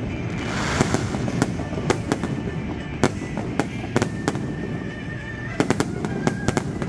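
Fireworks display: a steady low rumble with many sharp bangs and crackles of shells bursting overhead, irregularly spaced.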